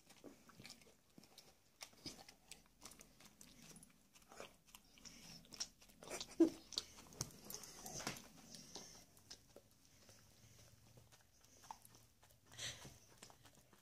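Pit bull chewing and smacking its lips on a sticky peanut butter sandwich: faint, irregular wet mouth clicks and smacks, the loudest a little past the middle.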